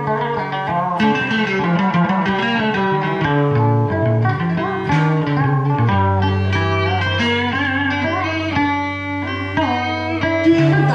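Vietnamese traditional string duo, a scalloped-fret electric guitar (guitar phím lõm) and a đàn kìm moon lute, playing an instrumental passage of đờn ca tài tử music, with notes that bend and glide in pitch.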